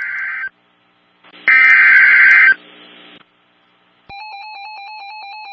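Emergency Alert System SAME data bursts: a harsh, buzzing digital burst ends about half a second in, and a louder one lasting about a second follows. About four seconds in a steady electronic alert tone starts, stepping back and forth between pitches, which marks the start of a new warning.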